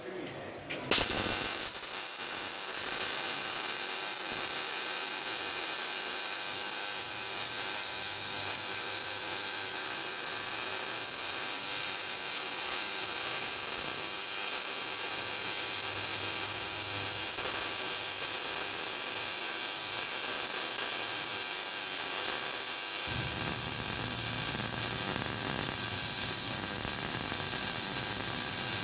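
Electric arc welding: the arc strikes with a sharp crack about a second in, then runs as a steady crackling hiss while a bead is laid in the flat position.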